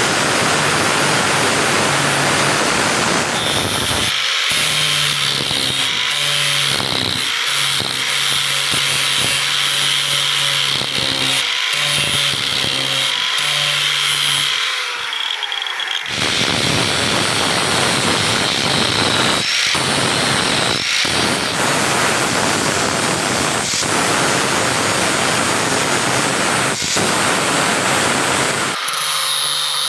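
Electric angle grinder with an abrasive disc grinding rust off a steel tin-snips blade: a continuous grinding hiss over the motor's steady whine, which changes in tone about halfway through.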